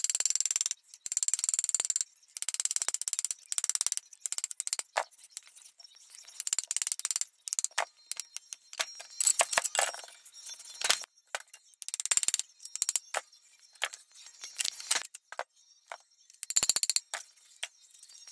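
Metal-on-metal clicking and rattling from the steel ball-ended handle parts of a 1938 Reed vise being worked against its cast-iron body. It comes in repeated bursts of rapid clicks, with short pauses between them.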